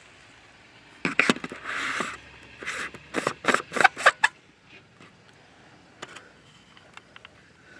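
Handling noise from a camera being fitted to a rifle scope's eyepiece: a quick run of sharp clicks and knocks with a short scrape, starting about a second in and ending at about four seconds, then a few faint ticks.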